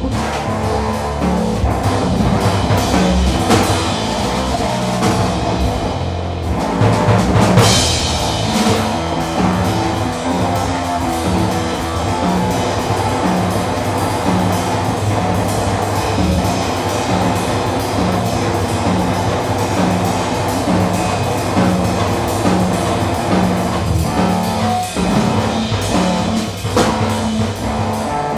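Free improvisation on electric bass guitar and drum kit played with sticks. The bass settles into a short low figure repeated about once a second, under busy drumming, with a loud cymbal-like crash about seven seconds in.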